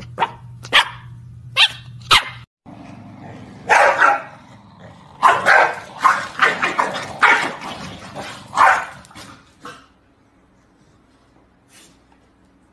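Small dogs barking: a few short, sharp barks, then after a brief gap a run of louder barks in quick clusters that stops about ten seconds in.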